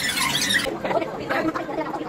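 Indistinct background voices, with a brief high squeaky chirping sound in the first half-second.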